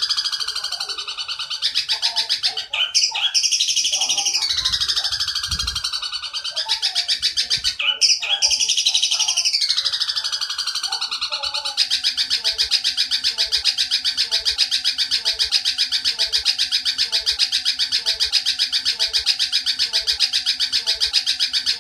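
Eurasian tree sparrow giving a long, fast chattering call. For the first dozen seconds it comes in phrases with high squealing sweeps that fall in pitch, about one every three seconds. From about twelve seconds in, it runs on as one unbroken rapid chatter.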